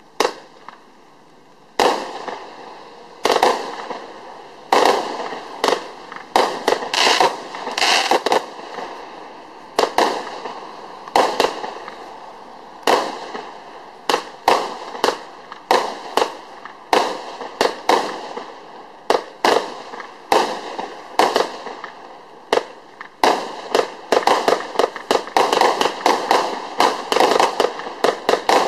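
Compound firework cake, a 170-shot battery of 25 mm and 20 mm shot tubes, firing a quick run of sharp bangs, several a second. The shots begin about two seconds in and come thicker over the last five seconds.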